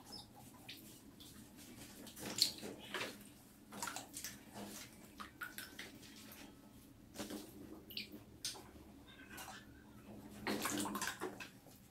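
Mice swimming in the shallow water of a small inflatable paddling pool, making irregular small splashes and sloshes, with a longer run of splashing near the end.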